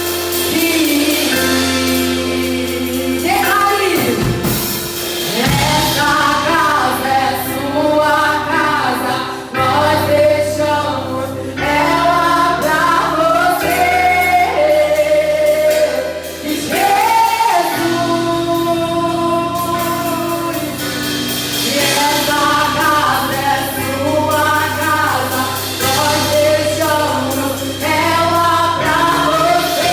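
A church praise team singing a gospel worship song, several voices over a band with sustained bass notes.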